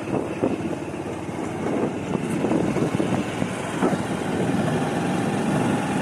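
Motorcycle engine running as the bike rides along, with a few brief knocks.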